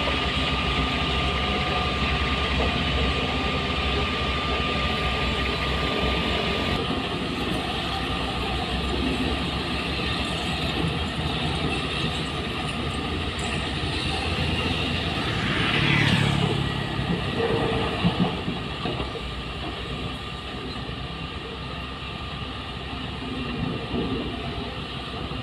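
Heavy diesel construction machinery running steadily at a worksite, with a falling squeal about two-thirds of the way through and a couple of sharp knocks shortly after.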